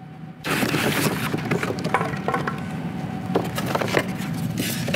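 Plastic stretch wrap and cardboard packaging crinkling and crackling as they are pulled off by hand, with many sharp clicks, starting suddenly about half a second in.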